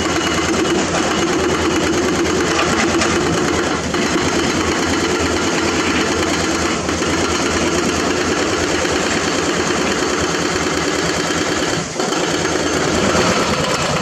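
Diesel engines of hydraulic excavators running steadily while they dig in broken rock.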